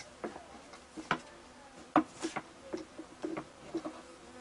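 Irregular light wooden knocks and clicks of a long thin rolling pin (oklava) against a round wooden board as dough is rolled out flat. The sharpest knock comes about two seconds in.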